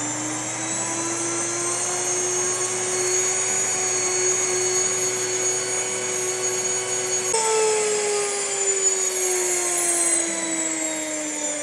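Electric NutriMill grain mill running loud while it grinds wheat kernels into flour: a steady motor whine that rises a little in pitch as it comes up to speed. A little over halfway through the sound changes abruptly, and the whine then slowly drops in pitch.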